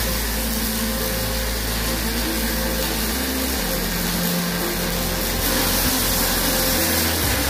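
Robotic pulse MIG welding arc from a Megmeet Artsen Plus 400PR on a KUKA KR16-2 robot, a steady hissing crackle, with background music underneath.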